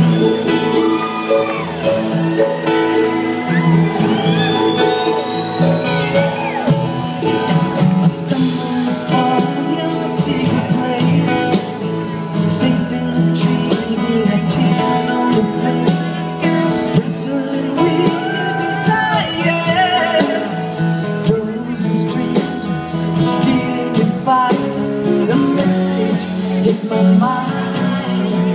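Live band playing a folk-rock ballad with acoustic guitars, drums and singing, amplified through a concert PA and recorded from the crowd.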